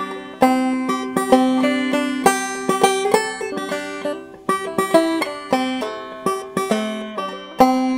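Banjo music: a quick run of plucked notes.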